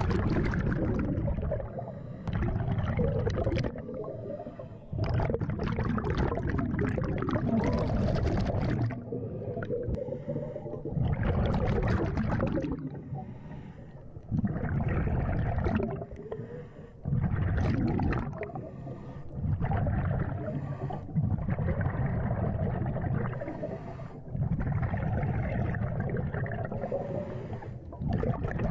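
A scuba diver breathing through a regulator underwater: a rhythmic cycle of hissing inhalations and bubbling, gurgling exhalations, repeating every two to three seconds.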